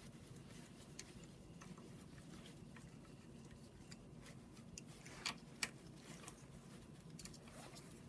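Hand ratchet with socket and extension clicking faintly as bolts are loosened on the engine's oil pump area, with two sharper metal clicks about five seconds in.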